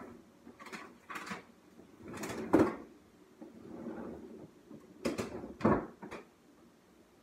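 Freezer handling in a side-by-side fridge: a series of sharp knocks and clunks with rustling between them as a frozen pop-it is taken out. The loudest clunk comes about two and a half seconds in, with two more a little after five seconds.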